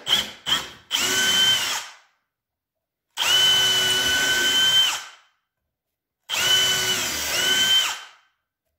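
Power drill run in three separate bursts of one to two seconds, each spinning up to a steady whine and stopping, after a few quick trigger taps at the start. It is drilling small pilot holes for bar-bracket screws.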